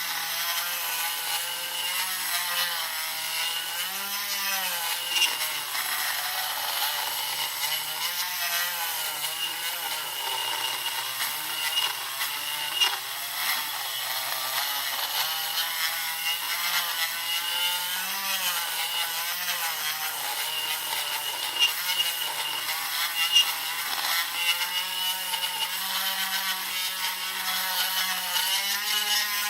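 Small battery-powered rotary tool (Dremel) running steadily with a high whine, its bit grinding a hole into an RX7 turn signal housing, its pitch wavering as the bit is pressed in.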